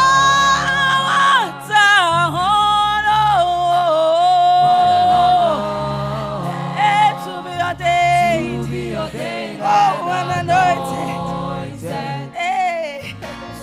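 Gospel worship song: a lead voice singing long held and sliding notes over a steady accompaniment.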